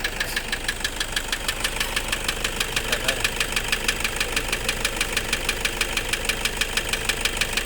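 Toyota Kijang Innova diesel engine idling with a harsh, even ticking knock, about seven clicks a second: the rough engine noise being diagnosed, still present after the last attempt at a fix.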